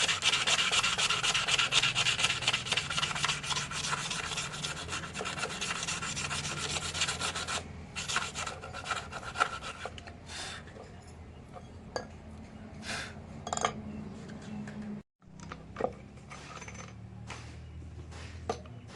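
Rasping, abrasive rubbing strokes, as when a forged kunai is hand-filed or sanded. Continuous and dense for about the first seven seconds, then sparser single strokes with a few light clicks.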